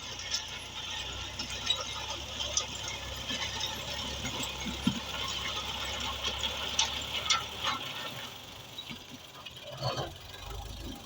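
Road construction machinery running, with a steady low rumble that fades out about eight seconds in and many scattered clicks, rattles and squeaks.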